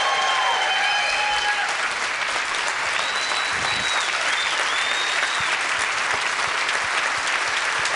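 Large audience applauding, with cheers at the start and long whistles in the middle.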